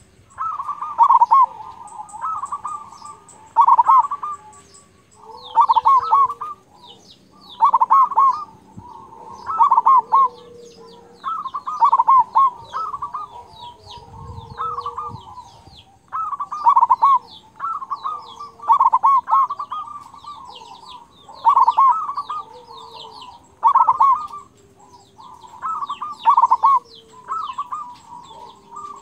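Local zebra dove (perkutut) in full song, repeating its rapid stuttering cooing phrase with a big 'kung' voice about every two seconds. Faint high chirps sound in the background.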